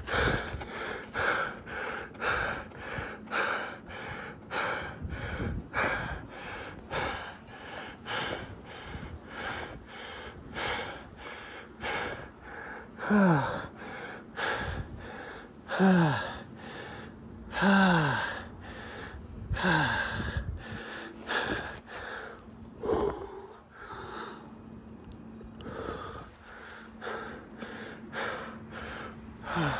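Heavy, rhythmic panting of a person running hard, about two breaths a second. Several breaths partway through come out as short falling moans, and a faint steady hum lies underneath.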